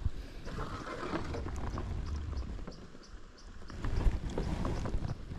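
Wind buffeting the microphone as a low rumble, with small knocks and rustles of movement in a kayak.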